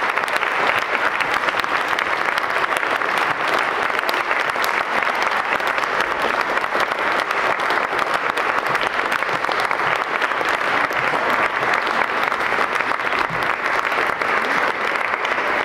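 Concert audience applauding steadily, a dense even clapping without let-up: the ovation for performers taking their bows.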